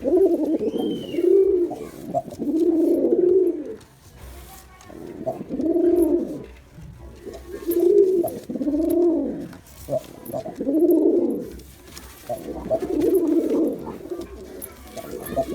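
Male domestic pigeon cooing: a run of low, rounded coos, each about a second long, rising and falling in pitch, repeated with short pauses.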